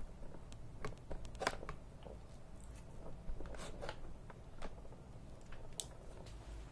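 Irregular small clicks and crackles of things being handled at close range, a few sharper ones among them.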